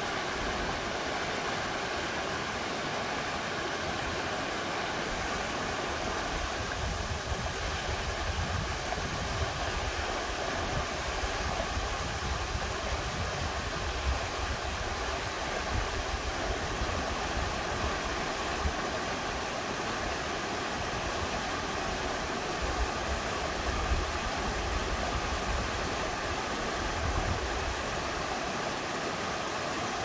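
Steady rush of a mountain stream, with gusts of wind buffeting the microphone as uneven low rumbles from about seven seconds in.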